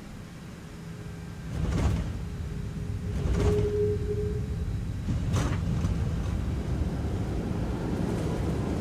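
Airbus A340 touching down and rolling out, heard in the cockpit: about a second and a half in a heavy rumble sets in and stays, with three sharp thumps spread over the next four seconds and a brief steady tone in between.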